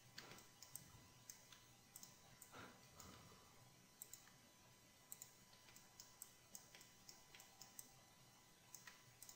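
Faint clicks of a computer mouse, irregular, one to three a second, over quiet room tone.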